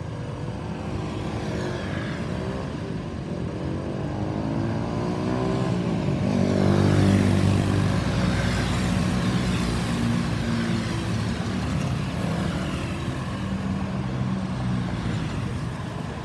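Airbus A320-216's CFM56 turbofan engines running as the jet flies over in its climb after takeoff. The roar swells to its loudest about seven seconds in, then slowly fades.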